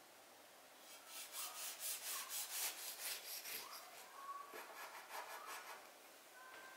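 Chef's knife sawing through a baked pound cake on a wooden board, in quick back-and-forth strokes. The strokes start about a second in, ease off around four seconds, and come again more loosely before stopping near six seconds.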